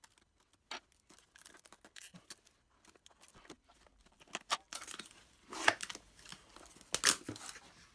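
Packaging of a lathe chuck being torn open and handled: scattered rustling and ripping, sparse at first, then denser and louder in the second half, with the loudest rips about six and seven seconds in.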